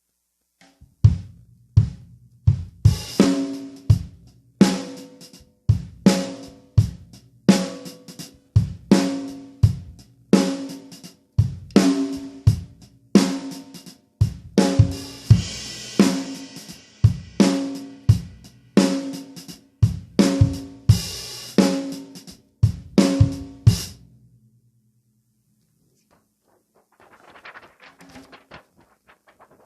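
Drum kit groove built around a 10-lug 14 x 6.5 inch snare drum with 20-strand snare wires, tuned medium-high, played with bass drum and cymbals. The playing stops about 24 s in and the drum rings on briefly with one steady tone, followed by a few faint, light hits near the end.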